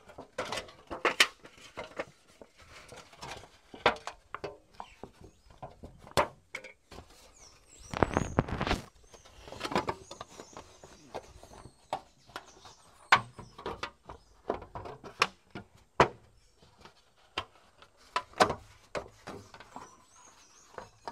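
A thin metal sheet being bent and pressed by gloved hands around a wooden post: scattered crinkling, rattling and sharp taps, with a louder burst of crinkling, about a second long, some eight seconds in.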